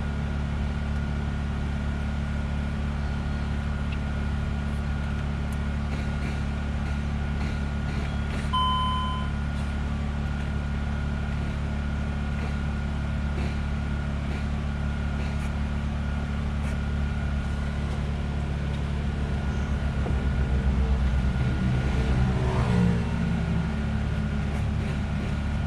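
Steady low machine hum with a faint high whine, and one short electronic beep about eight and a half seconds in.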